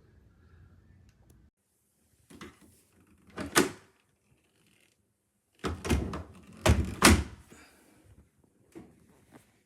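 A few handling knocks and thuds, like a door or cupboard being moved, with the two loudest close together about seven seconds in.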